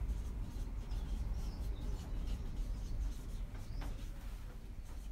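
Marker pen squeaking and scratching on a whiteboard as a line of words is written, in short strokes over a steady low hum.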